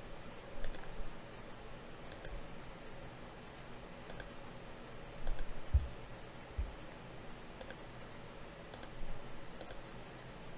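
Computer mouse clicks, single and in quick pairs, every second or two, over faint room noise, as nodes are picked on screen. Two soft low thumps come about halfway through.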